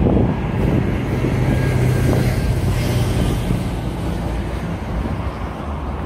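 A motor running with a steady low hum over dense outdoor noise, the hum fading somewhat in the second half.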